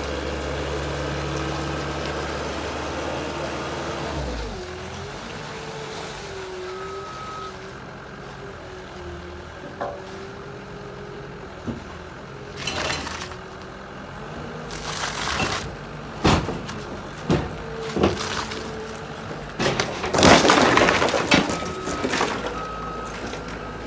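A heavy machine's engine running steadily, its note changing about four seconds in. Over it come scattered knocks, cracks and a few loud crunching crashes as car parts are broken.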